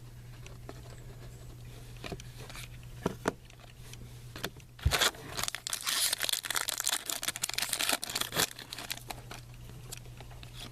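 Foil trading-card pack wrapper being torn open and crinkled. A few light taps and clicks of handling come first, then about halfway through the wrapper crackles densely for three to four seconds.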